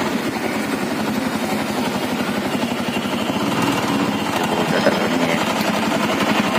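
Auto-rickshaw engine running under way, heard from inside the open passenger cabin as a fast, even chugging with rattle.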